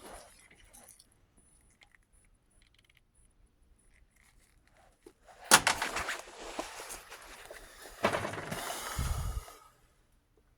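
Quiet at first, then a sharp clatter about five seconds in followed by metallic jangling and rattling, and a second stretch of scraping and rattling that ends in a dull thud, like metal parts and panels being handled.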